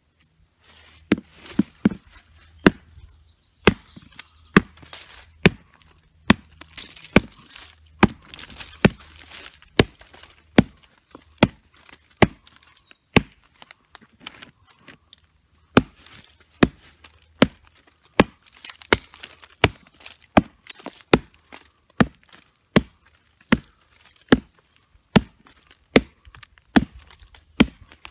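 Homemade fixed-blade knife chopping into a dead log: a steady run of sharp wooden chops, about one to two a second, with a short pause about halfway through while split-off chips are pulled away.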